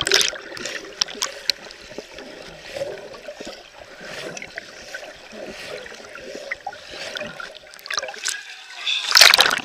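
Muffled gurgling and churning of muddy water around a submerged camera, with small scattered clicks and knocks, then a loud splash about nine seconds in as it breaks the surface.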